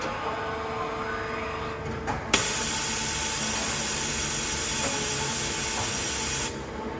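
Urawa UB-75 machining center running with a steady hum. About two seconds in there is a sharp click, then a loud, even hiss for about four seconds that cuts off suddenly.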